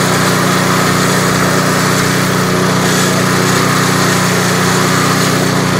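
Walk-behind snowblower's small gasoline engine running steadily.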